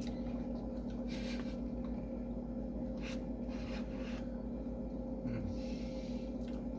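A few short scrapes and rubs of a spoon in a tub of ice cream, over a steady low hum.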